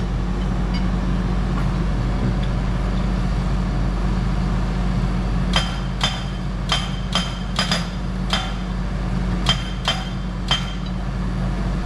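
Hydraulic post pounder on a Kubota SVL95-2 track loader driving a locust fence post: the loader's engine runs steadily, and from about halfway through the hammer lands about ten sharp, ringing metallic strikes over some five seconds.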